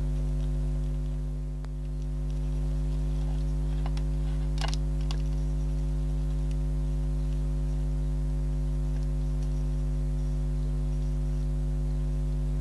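Steady electrical mains hum throughout, with a few faint light taps of an acrylic paint marker's tip dabbing on kraft cardstock, most of them around the middle.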